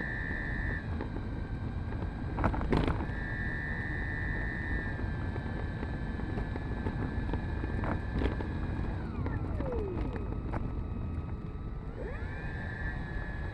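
Electric motor of a Freewing AL37 RC model plane whining at low throttle as it taxis: a thin high whine that comes and goes in steps and glides down about nine seconds in. Wind rumbles on the onboard camera's microphone, with a couple of knocks from the airframe rolling over the tarmac.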